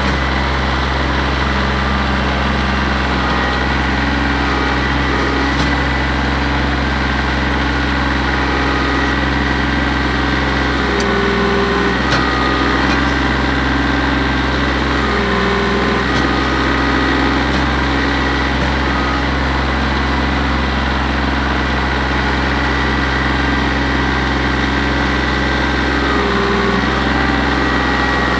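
Compact tractor's engine running steadily as it creeps along the trench pushing soil with its front loader bucket, the engine note shifting briefly about three times as the load changes.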